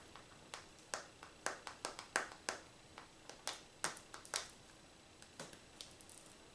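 Fingertips tapping on the glass touchscreen of a Samsung Galaxy Tab E 9.6 tablet: a run of faint, sharp, irregular taps, thickest in the first four seconds or so and thinning out after.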